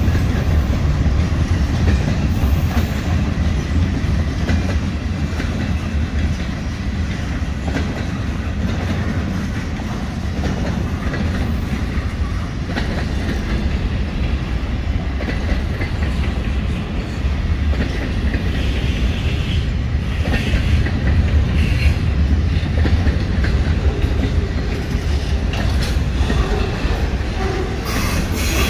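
Mixed freight cars of a Norfolk Southern freight train rolling steadily past: covered hoppers, flatcars and boxcars. A continuous low rumble, with the wheels clicking over rail joints.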